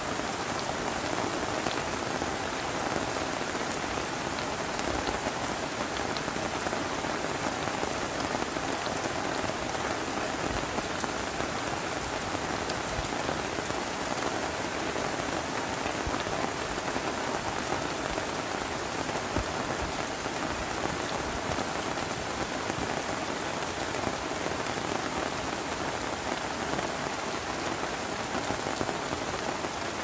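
Heavy rain falling steadily on a tent tarp and the surrounding forest, with scattered drops tapping.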